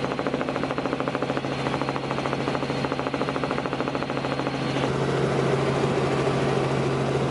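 Helicopter running, with a rapid, even chopping pulse over a steady low hum and a high turbine whine. The whine stops about five seconds in and the sound shifts, though the pulsing and hum go on.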